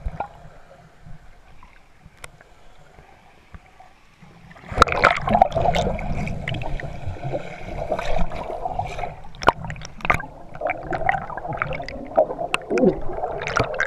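Muffled underwater sound of a swimmer moving through water, picked up by a GoPro in its waterproof housing: gurgling and bubbling with many sharp clicks. Quiet for the first few seconds, then much louder from about five seconds in.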